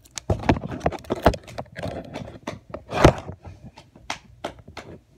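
Close-up handling noise: an irregular run of sharp clicks and crackles from hands working right at the phone's microphone, loudest about three seconds in.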